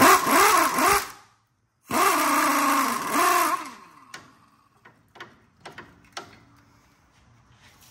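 Cordless impact gun spinning the nut off a rear sway bar end link whose stud is held with vise grips, in two bursts about a second apart, the motor's pitch swelling up and down. A few light clicks follow.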